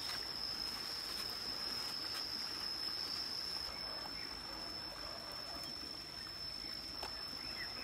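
Shallow forest stream trickling steadily over rocks, with a thin, steady high-pitched whine above it.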